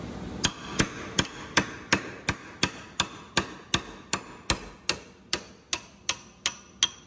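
Hammer beating on a steel chisel held in a steel ball joint housing, with about eighteen steady strikes at just under three a second, each with a short metallic ring. The chisel is driving out the pressed-in wiper seal and PTFE epoxy bearing.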